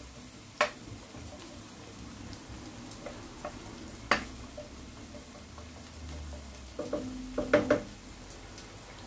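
Chopped onions sizzling in olive oil in a non-stick frying pan while a wooden spoon stirs them, knocking against the pan a few times: a sharp tap about half a second in, another around four seconds, and a quick cluster of knocks near the end.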